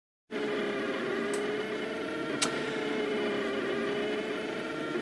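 Homemade Rostock delta 3D printer running a print: a steady whining hum from its motors, with two light clicks, the sharper one about two and a half seconds in.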